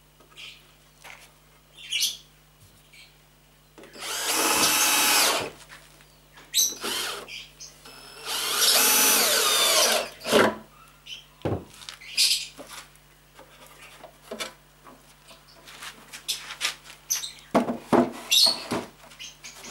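Cordless drill-driver driving two wood screws into a pine shelf top board, two runs of a second or two each, about four seconds in and again about eight seconds in. Scattered short knocks and clicks between and after, from handling the wooden shelf and screws.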